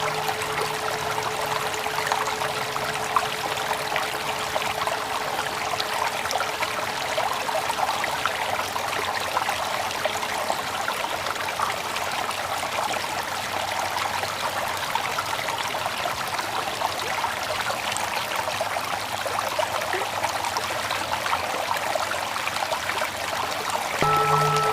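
Steady sound of running water, like a stream. The ring of a mindfulness bell fades out in the first few seconds. Near the end the bell is struck again: a deep pulsing hum with several clear higher tones over it.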